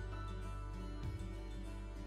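Background music with a steady bass line and plucked-string melody.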